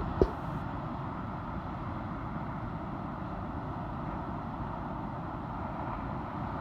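Steady rush of ocean surf, with two sharp knocks in quick succession at the very start.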